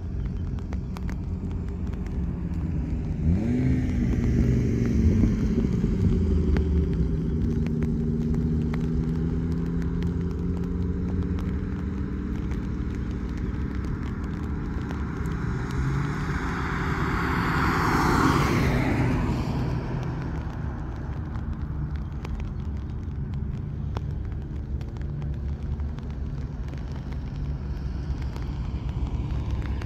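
Audi quattro cars running through the finish of an eighth-mile sprint: an engine note rises about three seconds in, then falls slowly as the car slows after the line. About halfway through a louder rushing pass swells and fades. A steady low rumble lies underneath.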